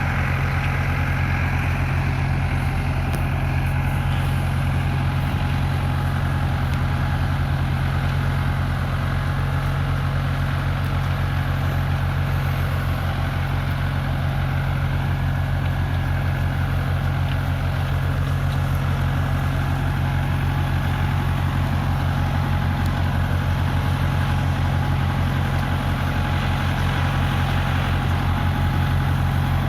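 SAME tractor's diesel engine running steadily at an even speed, its pitch and level unchanging.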